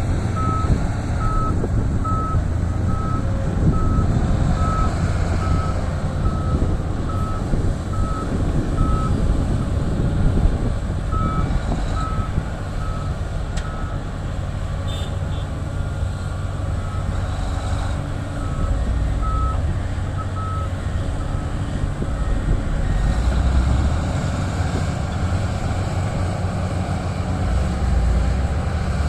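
Heavy diesel earthmoving machinery, a Komatsu D375A bulldozer ripping rock beside a Komatsu PC1250 excavator, running under load with a steady deep rumble. A reversing alarm beeps in an even series through the first third, stops, then beeps again briefly twice later on.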